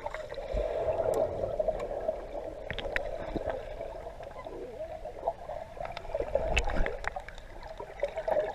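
Swimming-pool water swirling and gurgling, heard muffled through a camera held underwater, with scattered small clicks.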